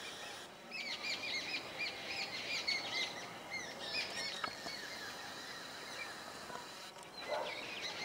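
Birds calling: a quick run of short, repeated high chirps for the first few seconds, then scattered calls.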